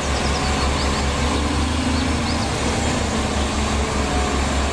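Diesel engine of a Liebherr all-terrain mobile crane running steadily as the crane drives slowly past, a deep even rumble.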